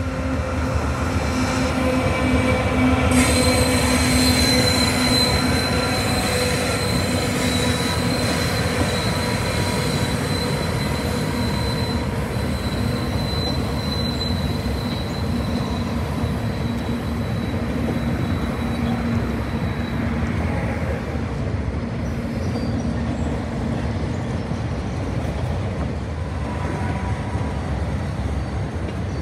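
Freight train of autorack cars rolling past, its steel wheels squealing against the rails: a steady high squeal with lower squeal tones begins about three seconds in and dies away about two-thirds through. Under it runs the steady rumble of the cars over the track.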